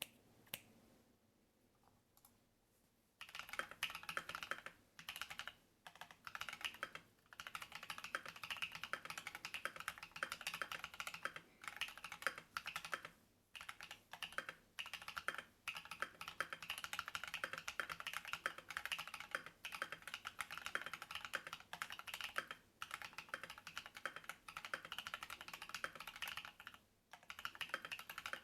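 Fast typing on a Monstargear XO V3 mechanical keyboard with lubed and filmed Paco switches, a brass plate and MT3 keycaps: a few single key clicks, then from about three seconds in a steady run of rapid keystrokes broken by short pauses.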